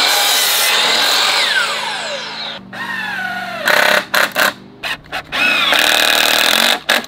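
DeWalt compound miter saw running through a cut in 2x4 lumber, its blade winding down with a falling whine. Then a cordless drill drives screws through 2x4s in several short bursts, its motor whining up at each trigger pull, with one longer run near the end.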